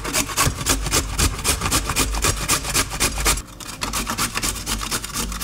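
A carrot being grated on a flat stainless-steel hand grater: quick, even rasping strokes of carrot against the metal blades, a few a second, getting quieter about three seconds in.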